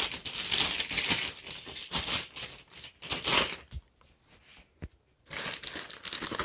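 Clear plastic wrapping crinkling and rustling as a plastic-bagged aluminium tripod is handled, in irregular crackly bursts. A short near-quiet lull a little past halfway is broken by two light knocks before the crinkling resumes.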